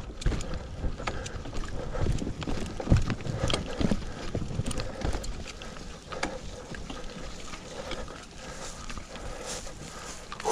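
Mountain bike rolling over bumpy ground, with tyre noise and frequent rattles and knocks from the bike over the rough track, and wind on the microphone.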